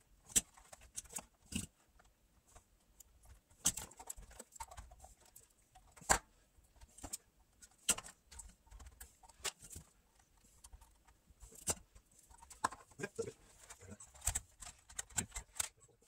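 Irregular light clicks and taps of hands working with a soldering iron, solder wire and components while capacitor leads are soldered onto an amplifier's circuit board.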